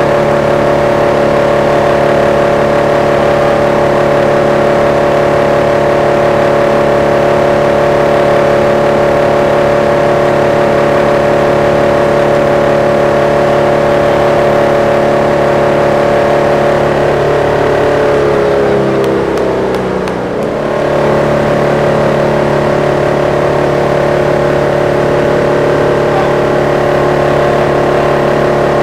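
Wood chipper's engine running at a steady speed. About two-thirds of the way through, its pitch sags and the sound dips briefly, then returns to the same steady note.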